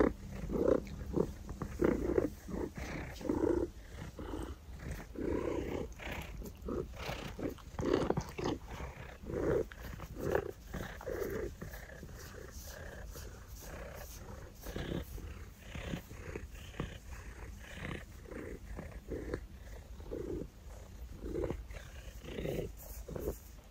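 A pet lynx-type wild cat calling in a long run of short sounds, about one or two a second, some close together and others spaced out.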